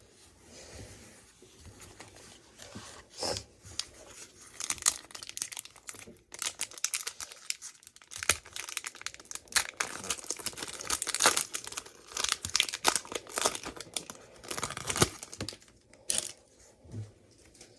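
Foil Pokémon card booster-pack wrapper being torn open and crinkled by hand: a run of irregular crackles and rips, busiest from about four seconds in until near the end.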